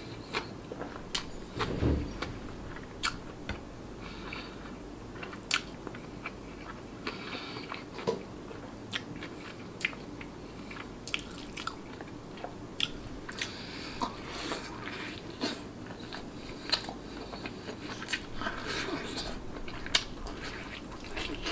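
Close-miked mouth sounds of a man eating Arab rice and lamb with his fingers: chewing, lip smacks and sharp wet clicks, irregular, about one or two a second.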